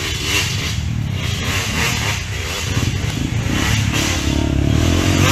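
Trail motorcycle engine revving up and down, climbing to a higher, steadier note about four seconds in.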